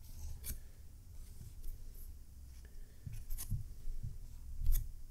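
Felt-tip marker drawing lines on a whiteboard, faint scratchy strokes with a few short sharp ticks.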